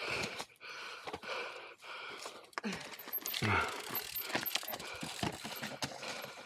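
Mountain bike descending a loose rocky trail: tyres and frame rattling and knocking over stones, with the rear hub's freewheel ratcheting as it coasts.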